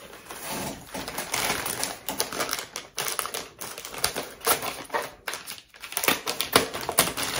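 Plastic packaging being pulled and torn open by hand: rapid, irregular crinkling and crackling clicks, with a couple of short pauses.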